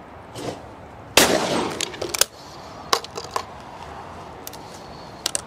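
A single shotgun shot about a second in, a sharp crack with a ringing tail. It is followed by several short metallic clicks as the break-action shotgun is opened and handled.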